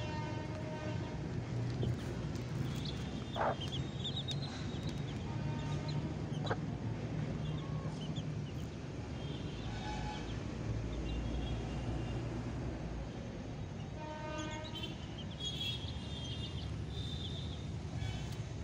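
Young chicks peeping in short high chirps under and around a brooding hen, over a steady low background rumble. A long, horn-like tone sounds at the start and again about 14 seconds in.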